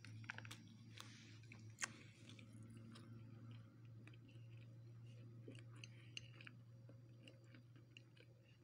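Faint chewing while eating fried chips by hand, with soft mouth clicks and small crunches over a low steady hum.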